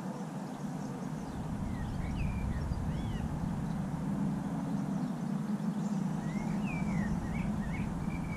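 Small birds calling with short rising-and-falling chirps, a couple about two to three seconds in and a run of them near the end, over a steady low rumble.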